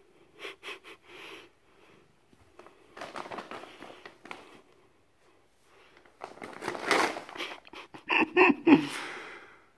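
Brown paper bag rustling and crinkling in bursts as a cat climbs onto it and shifts about on it, loudest in the last few seconds.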